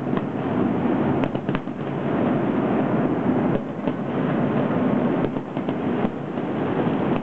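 Distant fireworks going off: scattered sharp pops and cracks, several close together a little past the middle, over a loud, steady rushing background noise.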